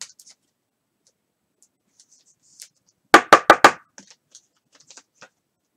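Four quick, sharp knocks in a row about three seconds in, followed by faint scattered rustles and ticks.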